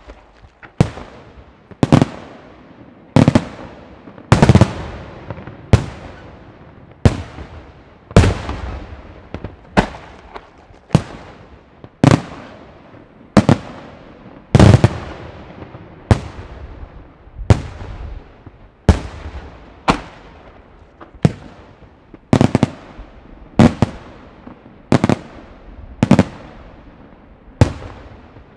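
Aerial fireworks shells going off in a steady sequence, a sharp bang about every 1.2 seconds, each one trailing off before the next.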